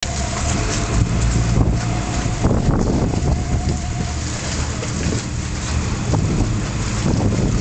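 Small passenger ferry's engine running with a steady low hum, with wind buffeting the microphone on the open deck. A thin steady whine stops about four seconds in.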